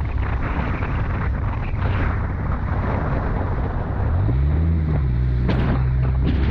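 Off-road vehicle engine running under rough rumbling noise and wind buffeting on the microphone. About four seconds in, the engine pitch rises and then holds steady as it revs up.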